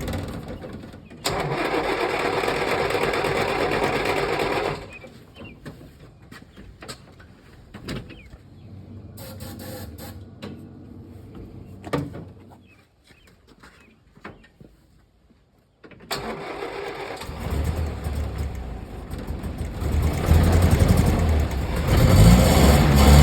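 2.5-litre petrol four-cylinder engine of a 1965 Land Rover 88 Series IIA in bursts. About a second in there is a steady loud run of about four seconds, then a long quieter stretch of scattered clicks and knocks. The engine sound builds again and is loud over the last few seconds.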